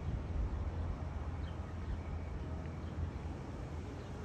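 Outdoor ambience: a steady low rumble, with faint high bird chirps scattered through it.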